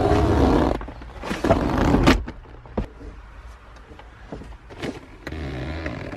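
A car's rear seat backs being folded down by hand: rustling and shuffling against the upholstery with scattered clicks and knocks from the seat mechanism. The noisiest handling comes in the first two seconds, with another bout near the end.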